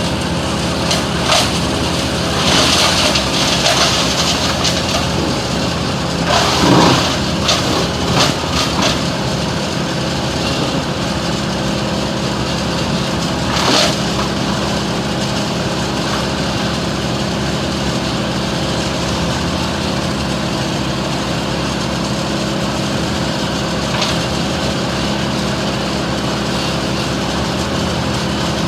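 An engine running steadily at an even speed, with several short, loud noises breaking in during the first third and one more about halfway through.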